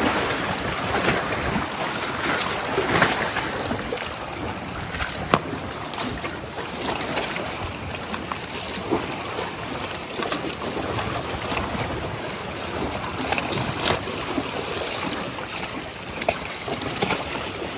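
Seawater washing and lapping against the rocks of a breakwater, with wind buffeting the microphone. A few brief sharp clicks stand out, the clearest about five seconds in.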